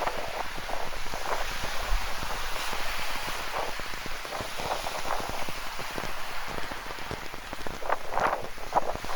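Steady rain falling, with many separate close drops heard through a constant wash. A cluster of louder drops comes about eight seconds in.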